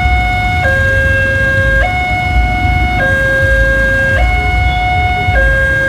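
Railway level-crossing warning siren sounding a two-tone high-low alarm, switching pitch about every second and a bit, over a steady low rumble. This crossing's siren has an unusual trembling, distorted character.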